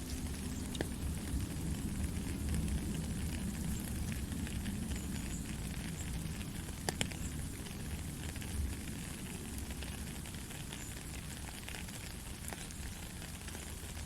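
Steady rain, an even hiss with scattered sharper drop ticks, a couple of them louder about halfway through, over a low rumble.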